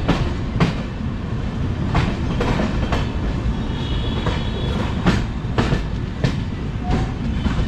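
Passenger train running, heard from an open coach door: a steady low rumble of the wheels on the track, broken by sharp irregular clacks as the wheels cross rail joints and points. A faint high wheel squeal comes about four seconds in.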